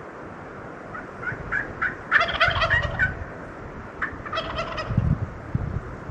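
Wild turkey tom gobbling twice, each gobble a rapid run of notes about a second long, the first about two seconds in and the second about four seconds in, after a few short high notes. Low thumps come near the end.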